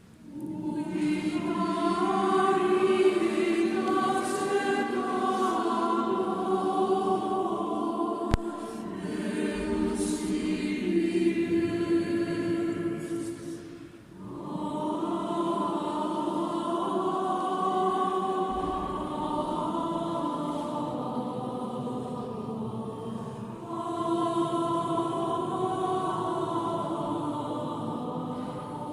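A choir of voices singing slow, sustained phrases together, with a short break about halfway through.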